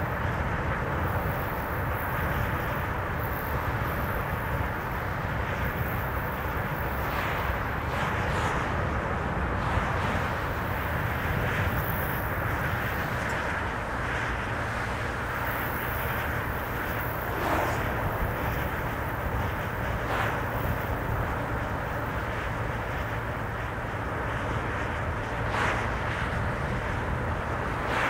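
Car driving at a steady road speed: even tyre and road noise over a low engine hum, with a few faint brief knocks.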